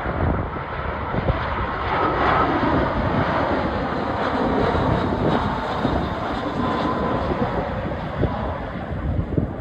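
British Airways airliner's jet engines as the aircraft passes, a dense noise that swells a couple of seconds in and slowly eases. Faint steady whine tones sit in the noise, with wind buffeting the microphone.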